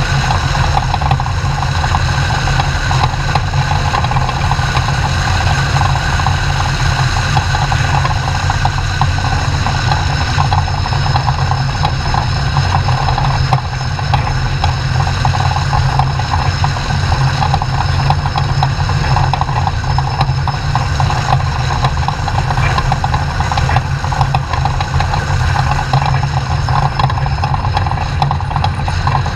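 Off-road race truck's engine running with a steady, unbroken drone, loud throughout, with a brief dip just under halfway through.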